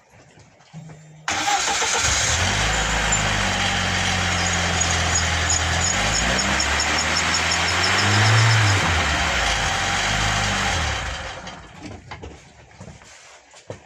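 VAZ-2104 (Lada) four-cylinder engine starting and being revved in first gear, the engine note rising and falling, with the rear wheel off and the bare brake drum spinning. It is run up to brake hard and jar loose a brake drum stuck on the hub. The sound dies away near the end.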